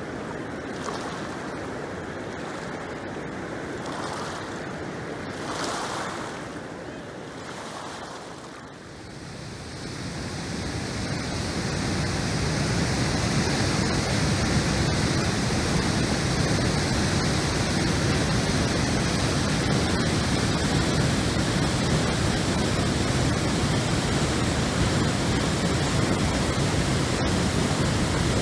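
Floodwater of the swollen Tama River rushing as a steady noise after a typhoon. It is quieter for the first few seconds, then grows louder and fuller about a third of the way in and holds steady.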